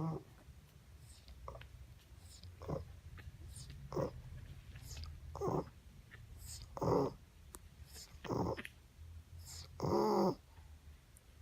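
Boston terrier snoring in her sleep: a rasping snore about every one and a half seconds, the one about ten seconds in the loudest and longest.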